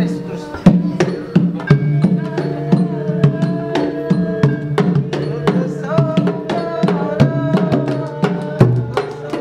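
A traditional Malay cempuling ensemble playing live. A large frame drum is struck with a padded beater and small paired drums are hit with sticks, keeping a steady beat of about three strikes a second under long held sung notes.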